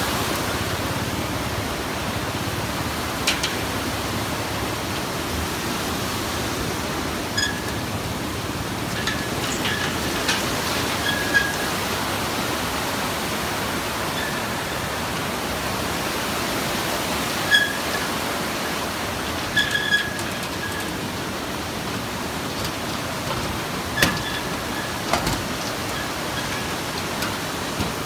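Steady rushing of a fast, muddy river pouring over boulders, with a dozen or so short, sharp, high-pitched clinks or squeaks over it.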